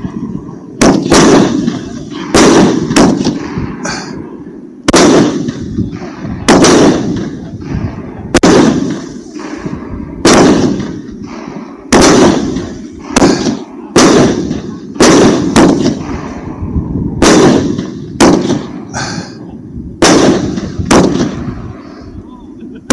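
A 30 mm, 25-shot Argento Feuerwerk Feronia firework cake firing its shells one after another. It gives sharp bangs at roughly one a second, sometimes two in quick succession, and each bang trails off in an echo.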